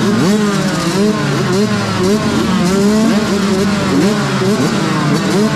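A line of motocross bikes, including a Yamaha YZ125 two-stroke, revving on the starting line: many throttle blips rising and falling over one another above a steady engine note, as the riders hold their engines up while waiting for the start gate to drop.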